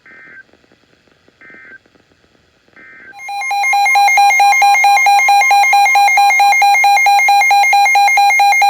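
Weather radio receiving an Emergency Alert System warning: three short digital header bursts about a second and a half apart, then a loud, warbling alert tone from about three seconds in, the signal that a new warning is about to be read.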